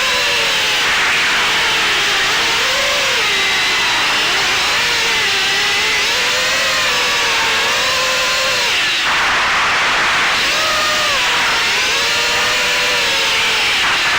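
Brushless motors and propellers of an Eachine Wizard X220 FPV quadcopter whining, heard from the on-board camera, the pitch rising and falling with the throttle over a steady rush of prop wash and wind. The whine dips briefly about nine seconds in, then picks up again.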